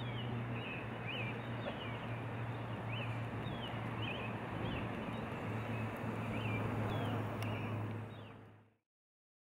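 Nature ambience: small birds chirping with short quick calls, about one or two a second, over a steady noise with a low hum. It fades out about eight seconds in.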